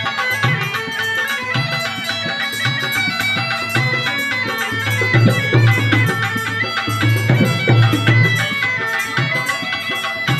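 Been, the gourd-bodied reed pipe of the snake charmers, playing a folk tune over its own steady drone, with a hand drum beating a rhythm underneath that grows stronger in the middle.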